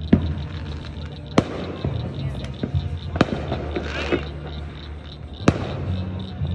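Fireworks going off: four sharp bangs spaced a second or two apart, with fainter pops in between, over a low steady hum.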